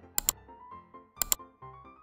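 Two quick double clicks of a computer-mouse sound effect, about a second apart, over light background music. The clicks go with a cursor clicking a subscribe button.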